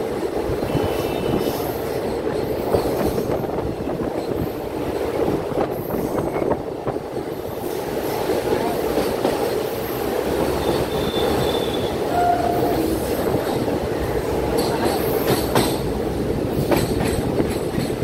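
Train running on the rail line, heard from on board: a steady rumble of wheels on track, with a few sharp rail-joint clicks near the end.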